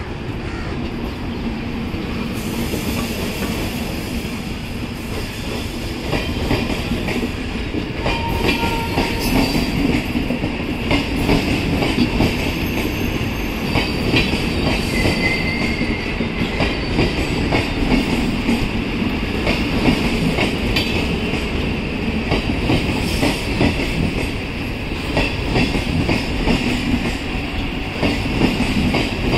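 Double-decker express coaches rolling past as the train pulls out, their steel wheels clattering over rail joints in a dense, irregular run of clicks.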